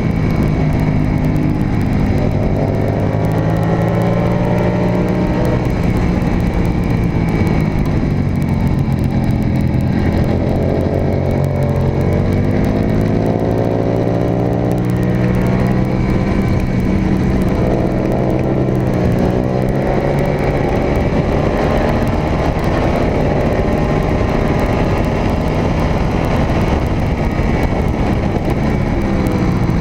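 Suzuki SV650 V-twin race motorcycle engine heard from on board, revving up on acceleration and dropping in pitch on braking into corners, several times over, with steady wind noise on the microphone.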